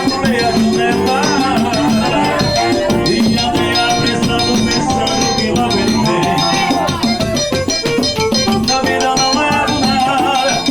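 Accordion playing a lively northeastern Brazilian dance tune, with a steady beat of drums and shaker-like percussion behind it.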